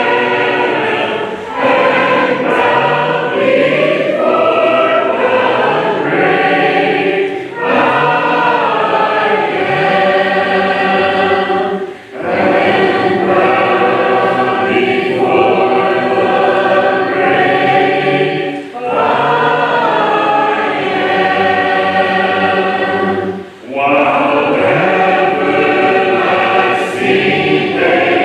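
Congregation singing a hymn a cappella, in phrases a few seconds long with brief pauses for breath between lines.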